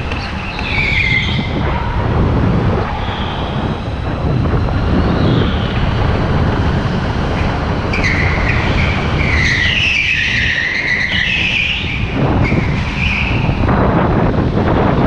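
Go-kart heard from onboard, its motor and rolling noise running steadily at speed, with the tyres squealing on the smooth indoor track floor through corners. There is a short squeal about a second in and a longer wavering squeal from about eight to thirteen seconds in.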